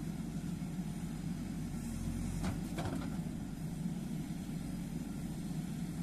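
JCB 3DX backhoe loader's diesel engine running steadily while the backhoe digs, with two short knocks about halfway through.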